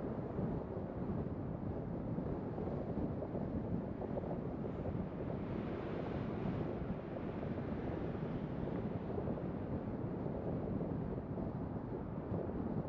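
Steady rumble of a car driving on a city street: road and tyre noise with wind on the microphone.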